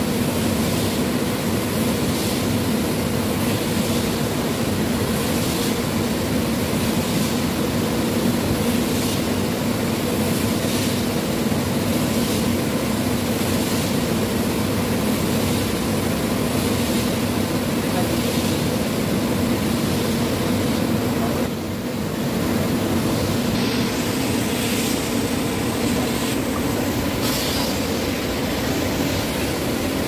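Vacuum cleaner motor running with a steady hum as its nozzle is worked over a foam mattress; the sound dips briefly about two-thirds of the way through.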